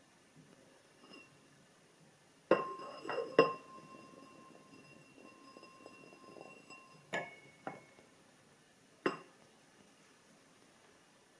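A brandy snifter clinks and knocks on a wooden board as it is swirled over an olive, then rings on for a few seconds while the olive rattles around inside it. Two sharp clinks follow, with a higher ring, as the olive drops into a martini glass, and a single knock comes near the end as the snifter is set back down.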